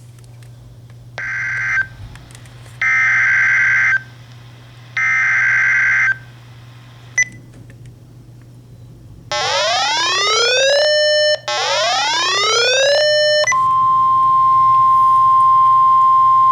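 Emergency Alert System alert tones. It opens with three short bursts of the warbling SAME digital data header. Two rising siren-like sweeps follow, then a steady single-pitch alarm tone of the kind NOAA Weather Radio uses to signal a warning.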